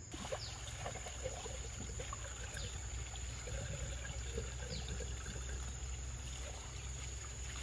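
Water poured from a plastic basin into a small engine-driven water pump to prime it, splashing and trickling steadily.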